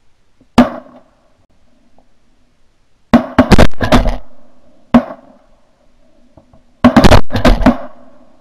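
Volley of shotgun shots from several duck hunters firing together. There is a single shot, then a rapid cluster of about four shots around three seconds in, another single shot, and a second rapid cluster near the end, each shot loud and sharp with a short fading tail.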